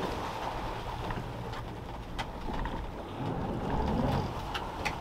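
Boat motor running with water washing against the hull and wind on the microphone, with a short rising tone about three seconds in.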